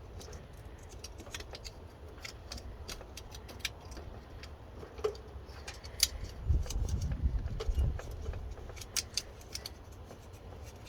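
Scattered small clicks and light metallic rattling from wires and crimp connectors being handled during the relay hookup, with a low rumble for about a second and a half from about six and a half seconds in.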